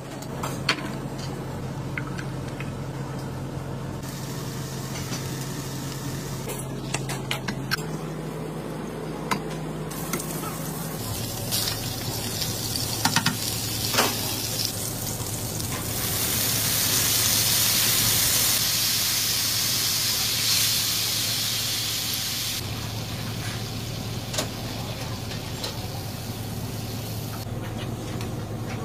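Fish steak frying in hot oil in a pan, sizzling, with scattered clicks of utensils against the pan. From about halfway, a louder steady hiss lasts several seconds as cream is poured into the hot pan. A steady low hum runs underneath.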